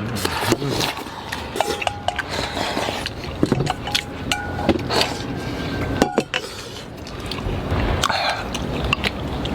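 Tableware at a meal: chopsticks and spoons clicking against bowls and plates in scattered, irregular clinks, with a few short thin tones in between.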